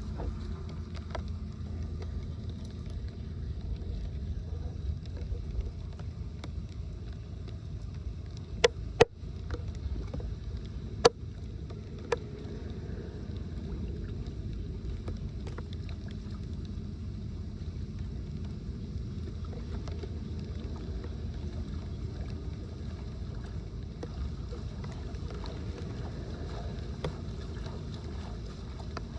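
Steady low rumble of floodwater rushing into a drain, mixed with wind on the microphone. A few sharp knocks stand out, two close together about nine seconds in and one about eleven seconds in.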